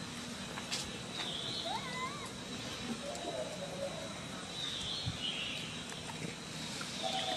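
Macaque calling: a short, wavering, rising squeal about two seconds in, then a fainter, lower call a second later.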